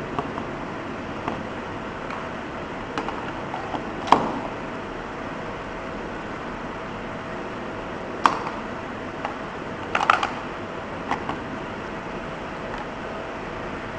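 Scattered sharp clicks and light knocks over a steady hiss with a faint steady tone. The loudest knock comes about four seconds in, and a quick cluster of clicks comes around ten seconds.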